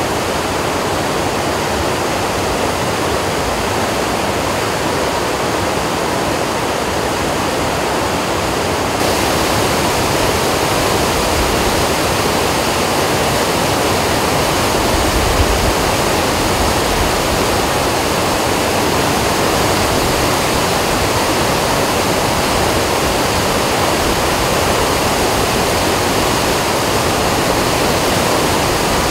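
A swollen, muddy river in flood rushing steadily, with a little more hiss after about nine seconds.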